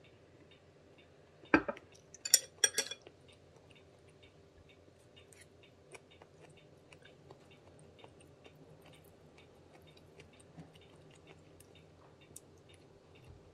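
A drinking glass set down on a hard tabletop with a knock about a second and a half in, then two sharp clicks of chopsticks being picked up. After that come faint eating sounds and a faint, regular ticking.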